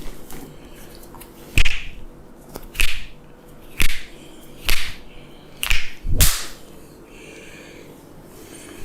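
Loud sharp hand slaps from a barber's percussive massage, six strikes roughly a second apart, the last two close together.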